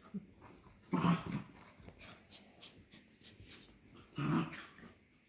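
Two corgis play-fighting, growling in two short loud bursts about a second in and about four seconds in, with quieter scuffling between.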